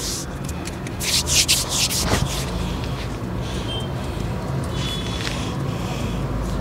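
Hands rubbing and kneading a person's hand and fingers, skin rubbing on skin in a quick run of strokes about a second in, with a single sharp click near the middle of that run.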